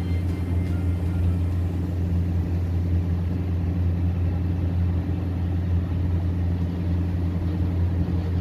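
Motorboat's engine running steadily while under way, an even low drone.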